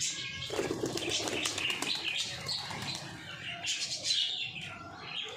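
Domestic pigeons flapping their wings in several short flurries of wingbeats as they take off and flutter about.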